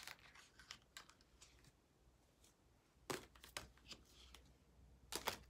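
Tarot cards being drawn from the deck and fanned out by hand: faint, scattered flicks and slides of card stock, with a few clearer ones about three seconds in and near the end.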